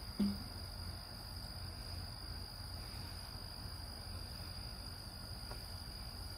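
Steady chorus of insects outdoors at dusk, a continuous high-pitched trill that does not change, over a low rumble. A short low sound comes just after the start.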